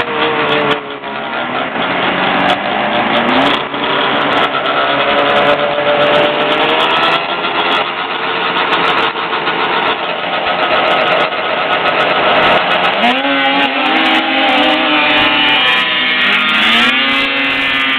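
Racing snowmobile engines running loudly, idling and revving; about thirteen seconds in, an engine note climbs steeply as a sled accelerates down the grass drag strip, and it climbs again near the end.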